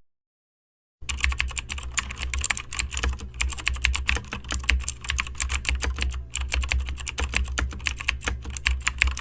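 Fast, irregular clicking like typing on a keyboard, over a steady low hum; it starts about a second in after silence.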